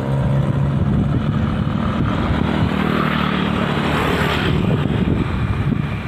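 A small engine running steadily, with a rushing noise that swells about three to four seconds in.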